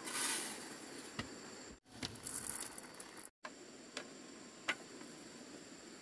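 A plastic bag crinkling as it is handled in the first second, followed by a few light, sharp clicks.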